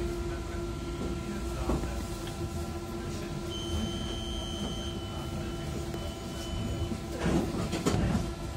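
Interior of a Konstal 105NWr tram: a steady low rumble with an electrical hum. A high thin whine sounds for about a second and a half in the middle, and a brief burst of noise comes near the end.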